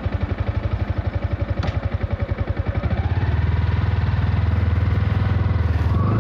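Yamaha R15 V4's 155 cc single-cylinder, liquid-cooled four-valve engine under way. It pulses at low revs, then pulls harder and runs louder and steadier from about three seconds in, with wind buffeting the camera microphone.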